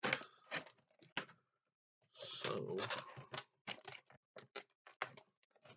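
A string of small, sharp clicks and taps, many in quick succession in the second half: nail clippers and hands working at the zip ties and plastic packaging that hold a toy truck in its box.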